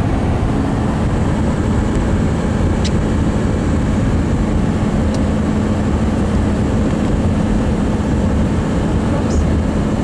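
Steady road and engine noise of a moving vehicle heard from inside the cabin, with a constant low hum.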